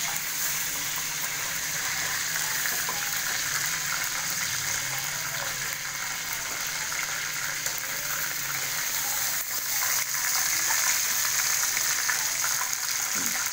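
Marinated chicken pieces frying in hot oil in a karahi, a steady sizzle.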